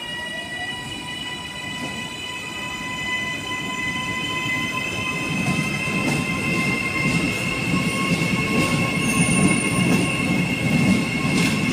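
Auckland Transport AM class three-car electric multiple unit pulling out of the station: a high steady whine over the rumble of wheels on rails, growing louder as the train accelerates past.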